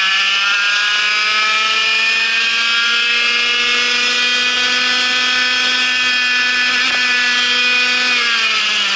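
Vortex MiniRok 60 cc two-stroke kart engine at full throttle, its pitch climbing steadily as the kart gains speed down a straight. Near the end the pitch drops as the driver lifts off and brakes for a corner.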